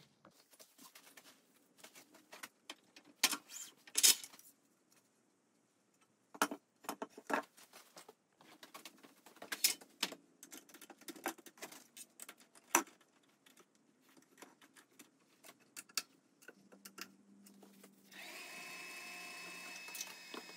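Scattered knocks and metal clicks of a wooden bowl being handled and remounted in a lathe's scroll chuck. Near the end, the lathe's electric motor starts with a steady whine.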